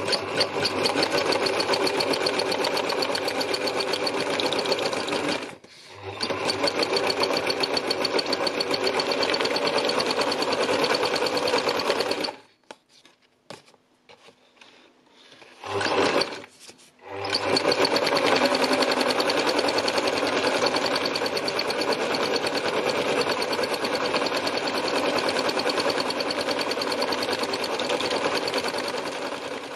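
Old Singer sewing machine running at speed, stitching free-motion through paper. It stops for a moment about six seconds in, falls silent for about three seconds around the middle, gives one short burst, then runs on steadily.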